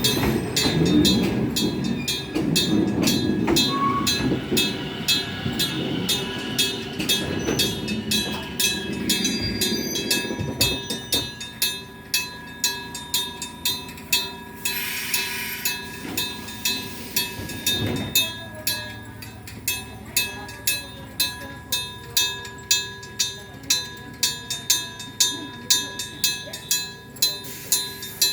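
Railway level-crossing bell ringing in even strokes, about one and a half a second, while a train rumbles past in the first ten seconds or so. A short hiss comes about halfway and a knock a few seconds later.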